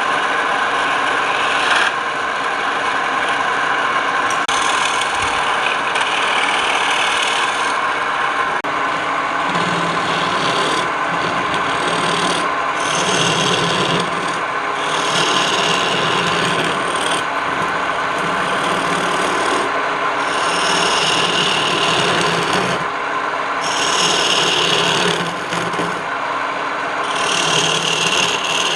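Wood lathe running steadily while a hand tool is worked against the spinning wood in repeated passes of a second or two each, a scraping, rasping noise over the steady motor sound.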